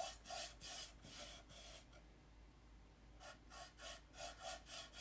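Wood stain being rubbed onto and wiped across a wooden board by hand, in quick back-and-forth strokes of about three or four a second. The rubbing pauses about two seconds in, then starts again.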